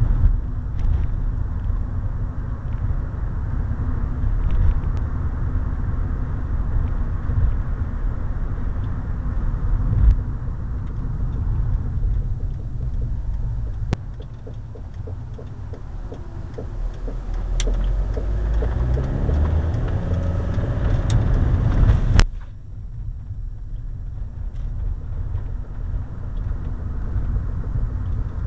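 Car driving with a loose, wobbling road wheel whose nuts were not properly tightened, giving a repeated knocking over the rumble of the road and engine. Later the knocks quicken along with a rising whine as the car speeds up, then a sharp click about 22 seconds in, after which the rumble is quieter.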